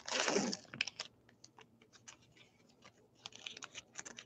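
Trading cards and a foil card pack being handled on a table: a brief rustle at the start, a few light scattered clicks, then the crinkle and crackle of the pack's foil wrapper from about three seconds in as it is picked up and torn open.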